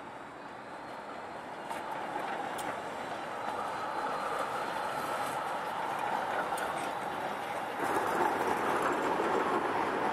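City trams rolling past on street track, growing louder as the first one comes close, with a few sharp rail clicks. About eight seconds in the sound jumps abruptly louder as another tram passes close by.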